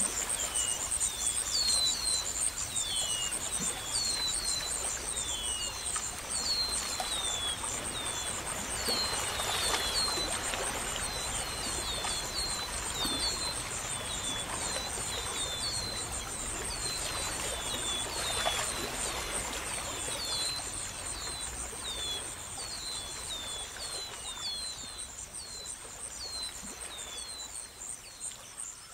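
Crickets trilling steadily, with a small bird repeating short falling chirps about once or twice a second. A soft rushing noise swells up twice, about a third and two-thirds of the way through.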